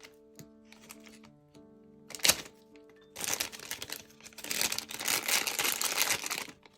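Plastic blind-bag packaging being torn open: a sharp rip about two seconds in, then continuous crinkling and rustling of the wrapper from about three seconds on.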